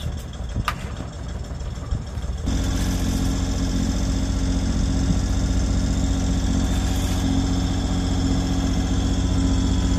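A sailing yacht's engine running steadily at constant speed, coming in abruptly about two and a half seconds in.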